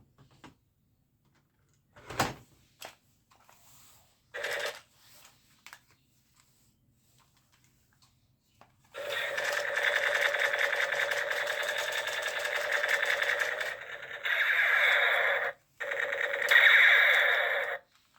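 Battery-powered toy gun firing with a rapid mechanical rattle, in three long bursts starting about nine seconds in. Before that come a few scattered clicks and knocks.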